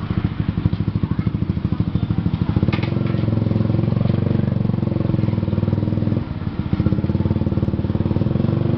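Motorcycle engine running while riding, its fast firing pulse steady throughout. About three seconds in the engine note fills out and gets louder, and a little after six seconds in it dips briefly before picking up again.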